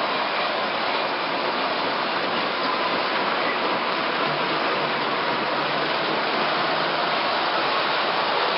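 O-gauge three-rail model subway train running on the layout's track: a steady, unbroken noise of wheels and motors.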